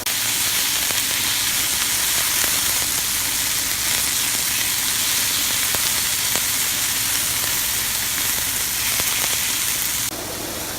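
Food sizzling in a hot frying pan: a steady loud hiss with small pops and crackles, cutting off abruptly near the end.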